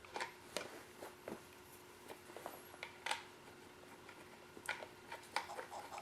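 Scattered, irregular small clicks and taps from handling a Foscam IP camera while its antenna is unscrewed and the original antenna screwed back on, over a faint steady hum.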